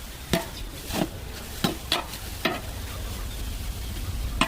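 Pork and water spinach sizzling as they are stir-fried in a pan, with a spatula knocking against the pan about six times.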